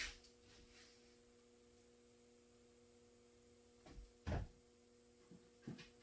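Faint steady electrical hum with a few brief knocks and clicks, the loudest a double knock about four seconds in and two lighter ones near the end.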